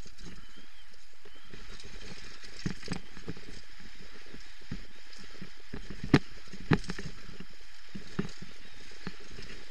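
Downhill mountain bike ridden fast over a dirt forest trail, heard from a helmet camera: a steady rush of tyre and air noise with the bike rattling and knocking over the bumps, and two sharp, loud knocks a little after six seconds in.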